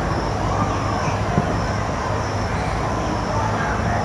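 Steady outdoor background noise with a low hum like distant traffic, faint far-off voices, and a faint high hiss that pulses on and off.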